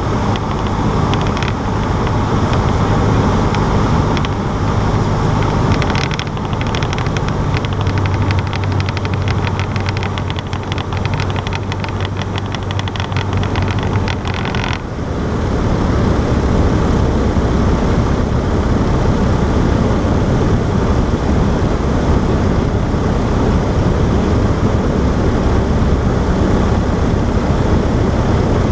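Cessna 152's four-cylinder piston engine and propeller running steadily. About halfway through the even hum gives way to a louder, rougher low rumble.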